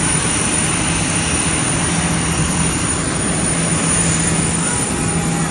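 Loud, steady jet aircraft noise: an even rush with a constant low hum underneath.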